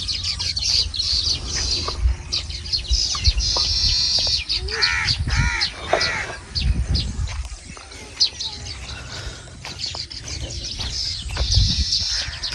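A chorus of small birds chirping continuously in high, rapid notes. About five seconds in, a larger bird gives three harsh calls in quick succession.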